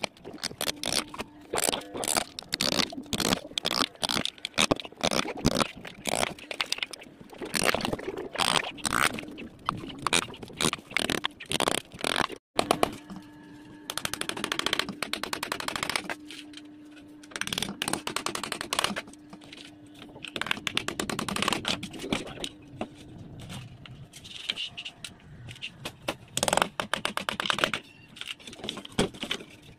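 Hammer driving small nails into thin plywood sheet, in runs of quick strikes several a second.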